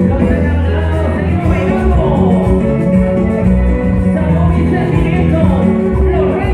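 Latin American band music with singing and guitar, loud and continuous.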